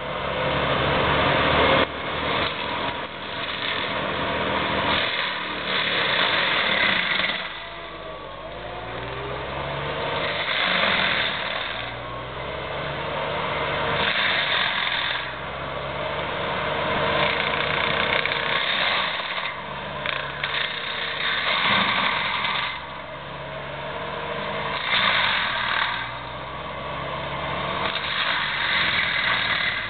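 Gyro-Trac forestry mulcher's diesel engine running under load while its mulching head grinds cedar and brush. Loud surges of grinding come and go every three to four seconds as the engine note rises and falls.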